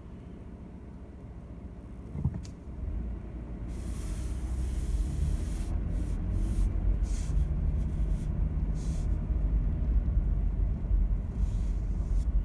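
Vehicle engine running while driving slowly, with a single knock about two seconds in; the low rumble then grows louder and holds steady.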